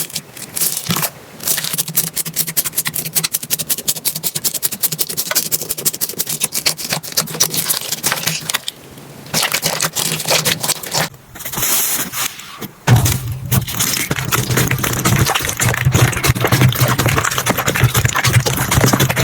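Slime being squeezed and pressed by hand, giving a dense run of rapid crackles, clicks and pops, in several short clips with brief breaks near the middle. A steady low hum lies under the last clip.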